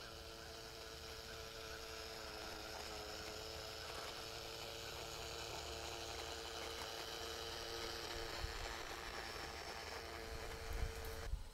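Garden-railway model train running past on its outdoor track: a steady small-motor hum with wheel noise, growing slowly louder as it nears and passes. The sound cuts off suddenly near the end.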